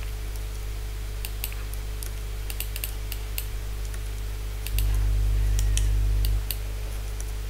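Scattered clicks of a computer mouse, coming in small clusters, over a steady low hum. The hum grows louder for about a second and a half, about five seconds in.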